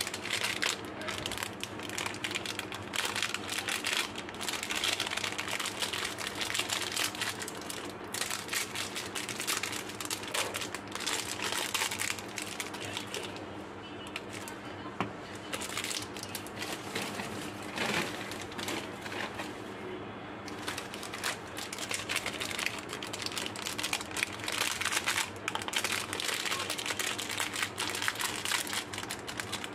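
Candy wrappers crinkling and crackling in the hands as coconut candy balls are peeled out of their printed outer wrappers and silver foil inner wrappers. The crinkling is dense and irregular and goes on throughout, with louder rustles here and there.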